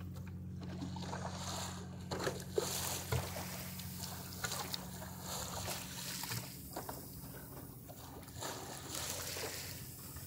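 Water sloshing and trickling along the wooden hull of a small sailboat under sail in light wind, with scattered small splashes, over a steady low hum.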